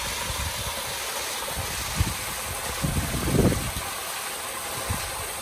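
Small rock waterfall pouring into a pool: a steady rush and splash of water, with a few short low bumps about two and three seconds in.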